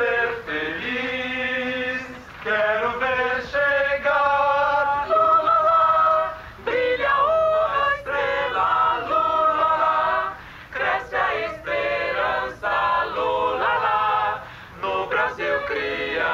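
A group of people singing together in chorus, in phrases of long held notes with short breaks between them.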